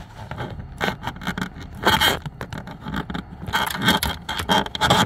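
A flexible claw pickup tool being pushed and worked through a hole in a car's firewall, scraping and rubbing in irregular bursts, with a longer stretch of scraping in the last second and a half.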